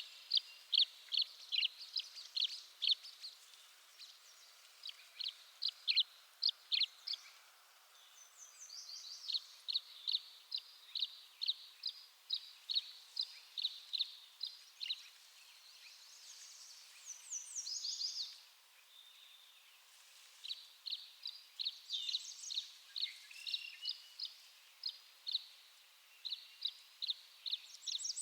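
Tree swallows calling: runs of short, clear chirps, about two or three a second, broken by brief pauses, with a few higher sliding notes mixed in.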